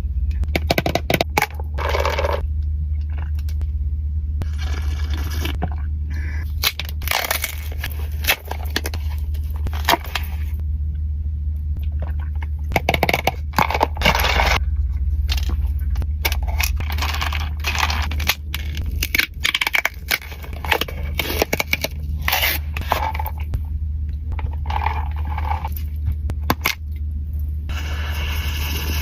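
Close-miked eating of pistachio chocolate: crisp crunching and chewing in irregular bursts with sharp clicks, over a steady low hum.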